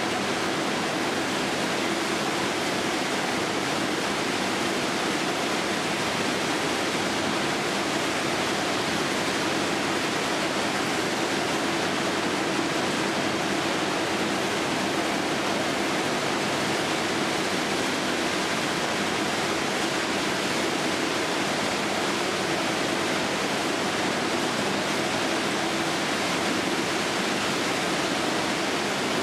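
Steady machinery noise on a peanut-processing line: an even, unchanging hiss-like din with a slight low hum and no separate knocks or rhythm.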